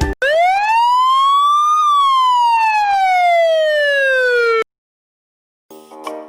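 A single siren-style wail used as a sound effect: the pitch rises for about a second and a half, then falls slowly for about three seconds and cuts off suddenly. After a second of silence, music starts up near the end.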